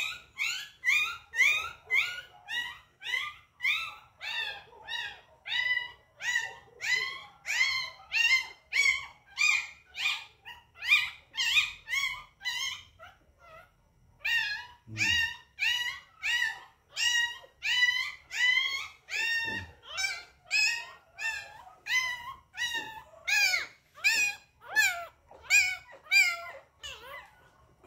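A two-week-old puppy crying continuously in short, high-pitched cries, about two a second, each rising then falling in pitch, with a brief pause about halfway through.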